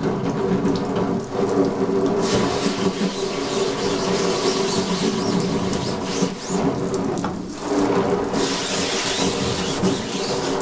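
Cold water running from a bathtub faucet onto a silk screen while a hand gently rubs the mesh, washing out the uncured photo emulsion to develop the stencil. Steady rush of water, dipping briefly twice.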